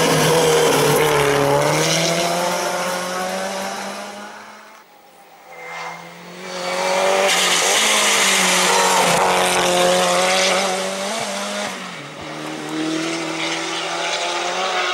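Race car engine running at high revs as a hill-climb car drives up the course, pitch rising and falling with throttle and gear changes. The sound dies away about five seconds in, then a second, loud pass comes up and fades again toward the end.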